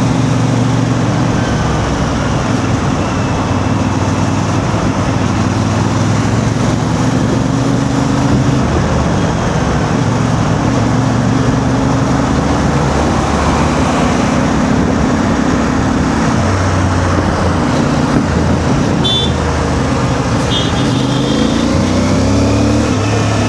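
CF Moto 450MT parallel-twin engine running at low speed in heavy traffic, its pitch rising and falling as the throttle is opened and closed, over a steady noise of surrounding traffic. A few short high beeps sound near the end.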